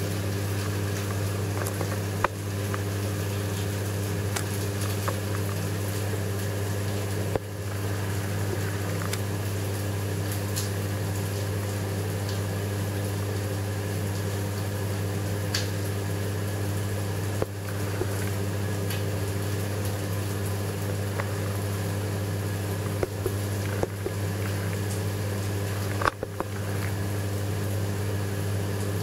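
Steady hum of a reef aquarium's circulation and sump return pumps under a hiss of moving water, broken by a few soft clicks.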